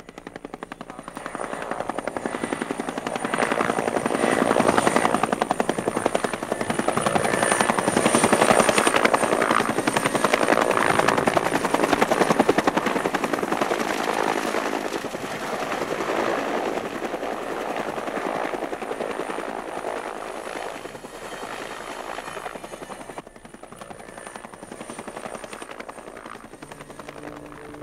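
Helicopter in flight, its rotor beating rapidly. The sound swells over the first few seconds, is loudest in the first half, then slowly eases off.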